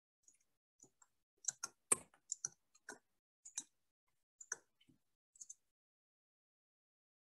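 Scattered faint clicks and ticks at an irregular pace, a cluster of them loudest about two seconds in, with dead silence between them.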